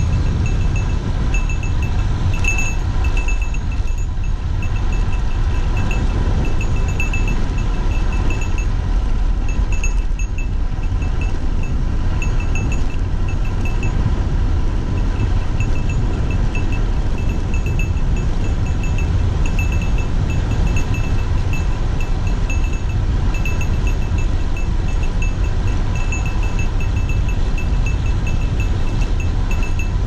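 Wind rushing over the handlebar-mounted camera of a road bike going downhill, with runs of rapid, even ticking from the rear freewheel as the bike coasts.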